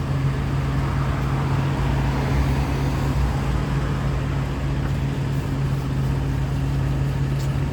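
Steady low engine hum of a vehicle idling close by, with road traffic passing in the street.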